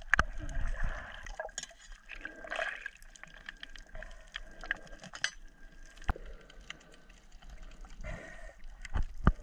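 Underwater sound picked up by a camera in a waterproof housing: low water and bubble noise with scattered sharp clicks.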